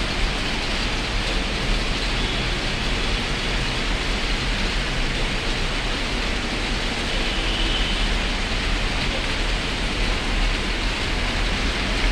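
Steady rain falling on a wet city street: an even hiss with a constant low rumble beneath it.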